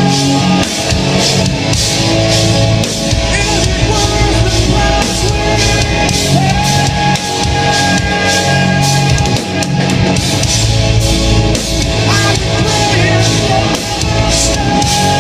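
Live progressive metal band playing a slow section, with a sustained note held over band chords, guitar, drum kit and a singing voice.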